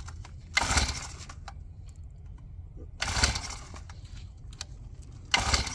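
Pull-start cord of a small gas mini bike engine yanked three times, each a short rasping whir a couple of seconds apart, without the engine catching: a cold engine that has not been primed.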